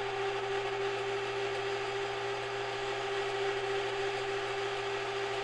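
Cuisinart freezer-bowl ice cream maker's electric motor running with a steady, even hum as it churns a batch of vanilla ice cream that has reached soft-serve thickness.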